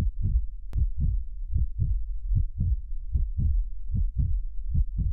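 Soundtrack of deep, low thumps in a steady pulsing beat, about four a second, often falling in close pairs. A faint click comes about a second in.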